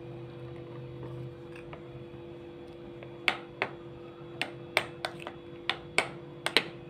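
Steel spoon clinking against a glass bowl while stirring thick cake batter. Short irregular clicks start about three seconds in, coming a few a second, over a faint steady hum.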